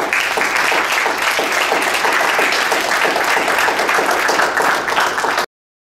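Audience applauding at the end of a poetry reading, a dense steady clapping that cuts off suddenly about five and a half seconds in.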